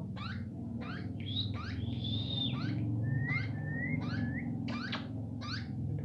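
Plum-headed parakeet chick chirping, short sharp calls repeated about once or twice a second: a begging chick being hand-fed. A few longer, steadier whistle-like notes come in the middle, over a steady low hum.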